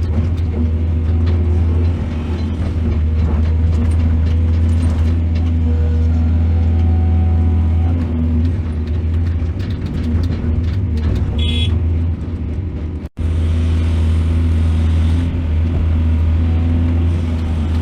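Heavy diesel engine of an excavator running steadily with a deep rumble. A short high squeal comes about two-thirds through, and the sound cuts out for an instant a little later.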